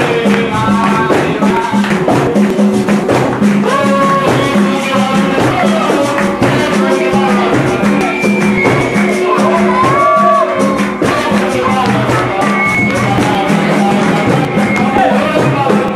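Capoeira roda music: group singing over a steady, repeating percussion rhythm with jingling pandeiro and berimbau.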